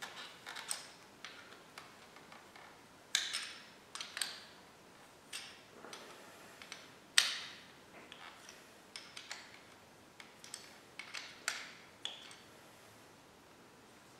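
Irregular metal clicks and clinks from handling and wrenching on a motorcycle's rear brake caliper bracket, with one sharp knock about seven seconds in.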